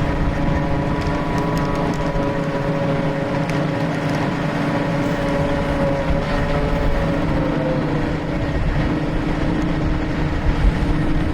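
Diesel engine and hydraulics of a backhoe running hard under load, a steady rumble with a whine that sags slightly in pitch about eight seconds in, as it strains to lift a heavy septic tank.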